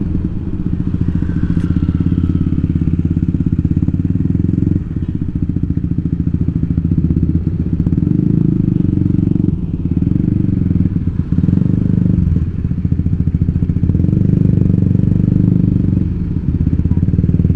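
Yamaha scooter's single-cylinder engine running under way, its note rising and dropping a few times as the throttle is opened and eased.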